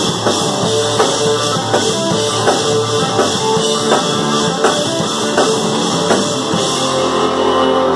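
Live rock band playing an instrumental passage of a thrash-metal and bluegrass tune: electric guitar, acoustic guitar, bass guitar and drum kit. The drums keep a steady beat until about six and a half seconds in, then stop while the guitars ring on in sustained chords.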